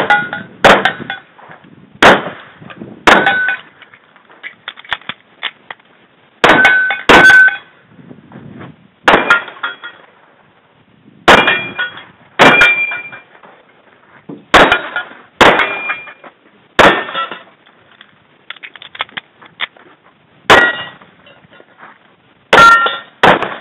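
Kimber 1911 pistol firing a stage string of about fifteen shots, mostly in pairs with pauses between. Many shots are followed by the short clang of steel plate targets ringing when hit.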